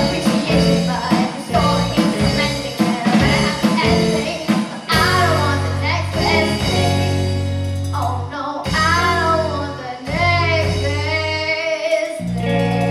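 Live rock band: a young girl singing lead over electric guitar, bass guitar and a drum kit. The drums beat steadily for the first five seconds, then long held chords ring under the singing, and a new chord is struck and held near the end.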